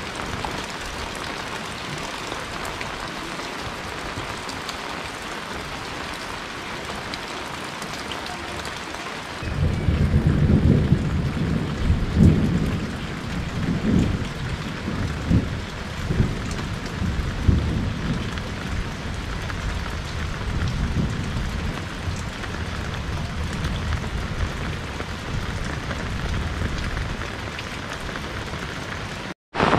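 Steady rain hissing on a tiled roof and wet ground. About ten seconds in, thunder starts rumbling low, rolling in several swells, then carries on as a quieter, steadier rumble under the rain.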